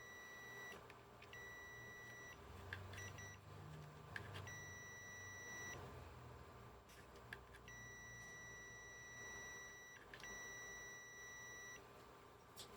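Digital multimeter in continuity mode beeping as its probes are held across diodes on a TV power supply board: about six steady high beeps of uneven length with short gaps, and light clicks where the probe tips touch. On a diode, a beep both ways marks it as shorted.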